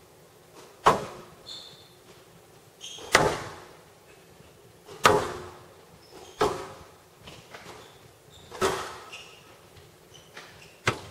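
Squash rally: the ball is struck hard by the racquets and hits the court walls, six sharp cracks about every two seconds, each with a short echo off the glass court.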